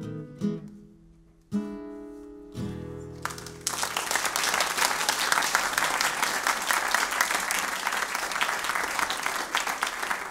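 Closing notes of a song on a hand-made Jose Juan Granados nylon-string classical guitar: a few plucked notes, then two chords, the last one left ringing. About three and a half seconds in, an audience breaks into applause, the loudest sound here.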